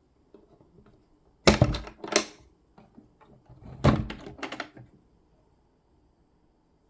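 Handling clatter of hard objects: a pair of sharp clunks about a second and a half in, then a cluster of clunks and rattles about two seconds later, with faint clicks around them.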